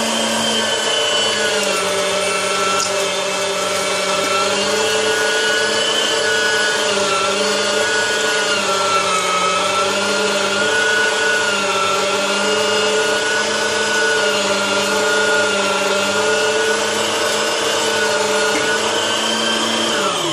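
Electric meat grinder running while it grinds raw meat into mince: a steady motor whine that wavers slightly in pitch as the meat feeds through. It is switched off at the very end, the pitch falling as the motor winds down.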